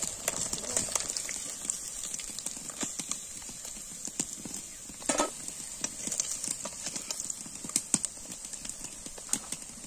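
Shol fish steaks frying in oil in an aluminium kadai with a steady high sizzle, while a metal spatula clicks and scrapes irregularly against the pan as the pieces are turned and lifted out. A louder knock comes about five seconds in.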